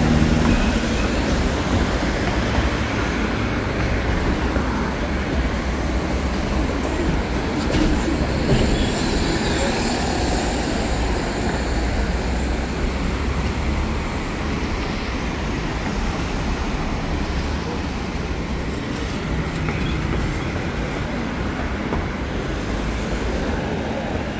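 Steady running noise of a moving vehicle, with a deep rumble underneath.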